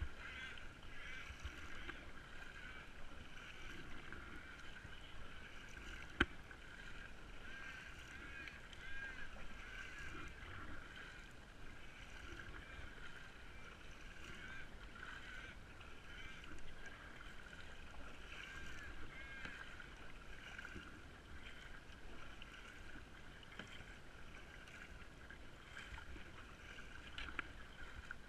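Kayak being paddled on calm water, with soft paddle strokes and water moving along the hull. Birds chirp throughout, and there is one sharp knock about six seconds in.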